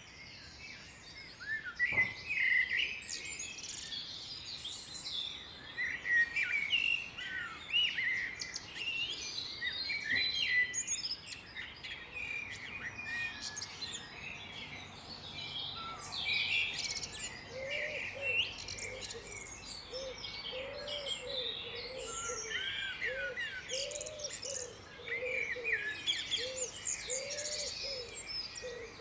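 Several songbirds chirping and singing over one another in a dense chorus. From a little past halfway, a lower-pitched call repeats about once a second beneath the song.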